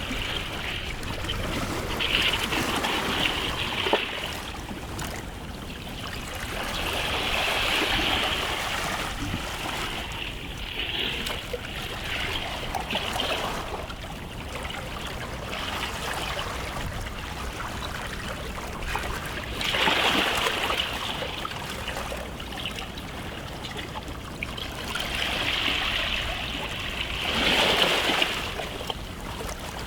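Small waves washing onto a beach shore: a steady hiss of moving water that swells and falls back every few seconds, with the loudest surges about 20 and 28 seconds in.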